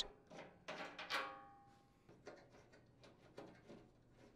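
Faint clicks and rattles of hands unthreading the plastic retaining knob screws on a chipper shredder's sheet-metal discharge chute, with a brief metallic ring that dies away about a second in.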